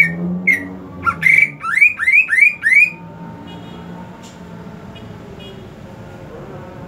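Green leafbird (cucak ijo) singing: a few sharp whistled notes, then a quick run of five rising whistles about a third of a second apart, stopping about three seconds in.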